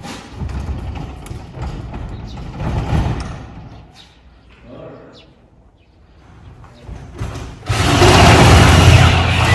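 Garage door installation work: irregular knocks and clattering, then a loud rumbling rattle for about two seconds near the end.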